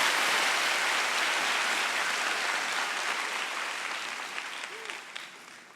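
Audience applauding, starting loud and fading away over a few seconds.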